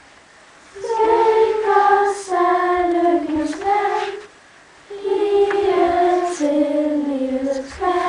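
Group of children singing a Lucia song together, in two sung phrases with a short pause before each.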